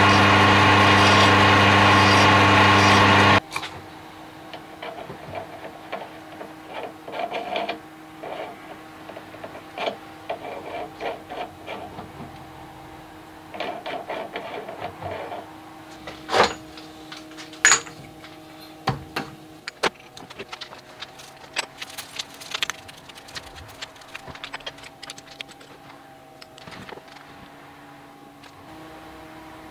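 Metal lathe running with a steady motor hum, cut off suddenly about three seconds in. After that, light metallic clicks and a few sharper knocks from parts and tools being handled, over a faint hum.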